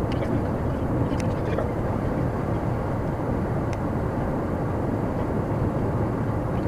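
Steady road noise inside a moving car's cabin: tyre rumble and engine hum of a 2011 VW Touran 1.2 TSI, with a few faint ticks.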